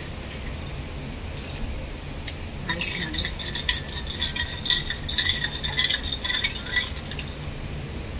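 Metal teaspoon stirring a drink in a tall glass, clinking quickly and repeatedly against the glass for about four seconds in the middle, each clink ringing briefly.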